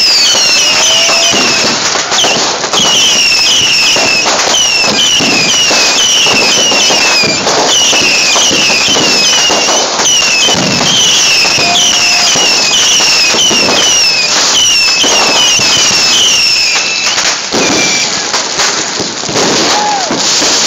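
Aerial fireworks going off overhead: dense cracks and pops under a rapid run of short, falling whistles. The whistles stop a few seconds before the end while the crackling goes on.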